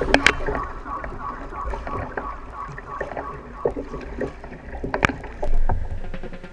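Water rushing and splashing along the hull of a moving kayak, with a sharp knock about five seconds in and a low bump just after. Music trails off faintly over the first few seconds.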